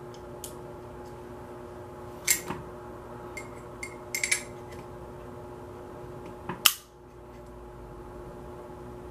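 Small metal parts of an AR-15 bolt carrier group clicking and clinking as they are handled and fitted together by hand: scattered sharp clicks, a quick cluster around the middle, and the loudest pair of clicks about two-thirds of the way through.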